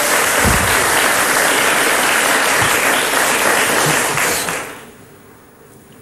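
Studio audience applauding, a dense even clatter of clapping that dies away quickly about four and a half seconds in.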